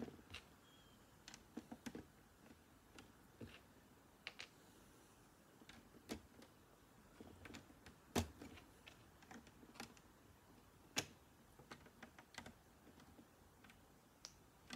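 Light, irregular clicks and taps of plastic Lego pieces being handled and pressed together, the sharpest about eight and eleven seconds in.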